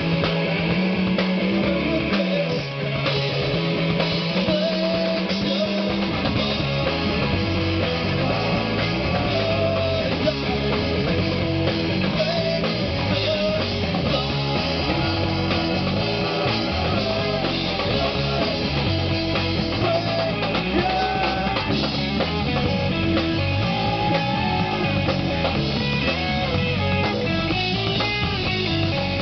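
Live rock band playing loud guitar-driven music. The guitar carries the first few seconds with little low end, then the full band with bass and drums comes in about six seconds in and plays on steadily.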